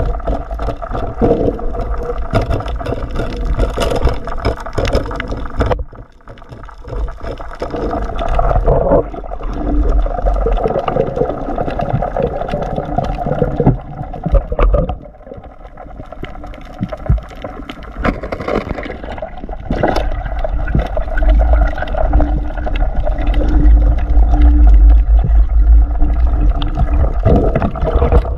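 Underwater sound picked up by a diver's camera: water swishing and gurgling around the housing, with a deep rumble and frequent sharp knocks from handling the spear and fish. It drops back briefly about six seconds in and again about halfway through.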